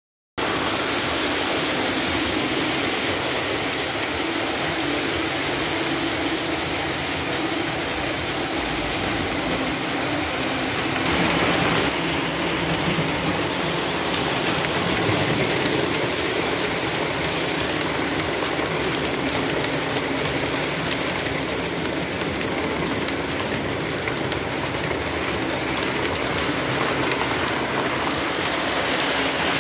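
Lionel O-gauge toy trains running on tubular three-rail track: a steady rattling rumble of wheels and motors that cuts in abruptly just after the start.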